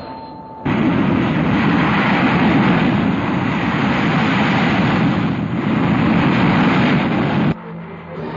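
A loud, steady engine roar that cuts in abruptly about a second in and cuts off just as abruptly near the end, typical of jet or gas-turbine noise.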